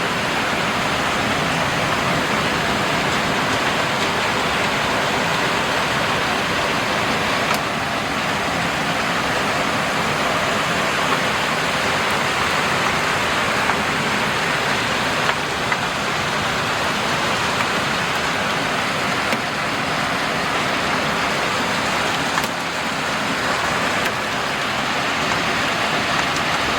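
Heavy thunderstorm downpour: a loud, steady rush of rain, with a few isolated sharp ticks.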